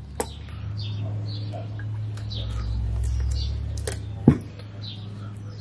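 Faint bird chirps over a low steady rumble that swells in the middle, with a sharp single knock about four seconds in.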